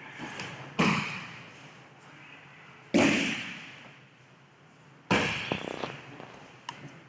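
Three sharp slaps and thuds, about two seconds apart, each echoing in a large hall: an aikido partner's breakfalls landing on tatami mats as he is thrown.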